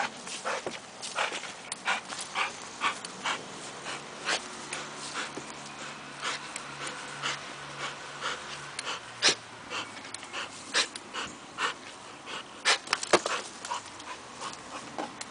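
Brabanter Bullebijter bulldog panting hard in quick, sharp breaths, about three a second, as it tugs and hangs on a rag on a spring-pole rope.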